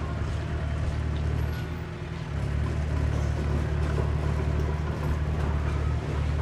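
Diesel engine of heavy earthmoving machinery running with a deep, steady rumble; its note changes about two seconds in and it runs a little louder after.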